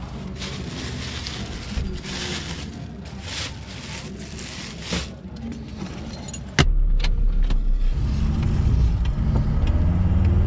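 Plastic bag rustling and a cool box lid being handled, with scattered clicks. About two-thirds of the way through comes a sharp knock, then the steady low running of the Volkswagen van's engine heard from inside the cab, getting louder as the van drives off.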